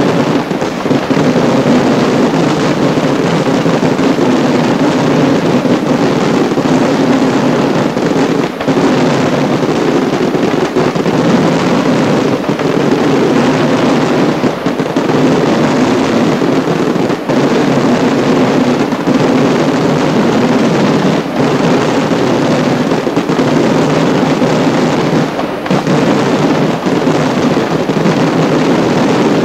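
Fireworks display at close range: a dense, unbroken barrage of explosions that merges into one continuous loud din.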